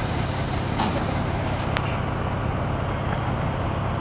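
An engine running steadily with a constant low hum. Two light clicks come about one second and two seconds in.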